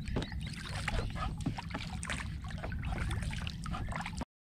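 Water splashing and lapping in irregular small bursts over a steady low rumble, cutting off abruptly near the end.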